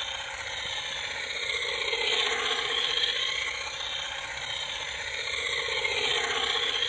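Homemade electric toy helicopter's high-speed drone motor and rotor whining in flight, the pitch dipping and rising again twice as it swoops past.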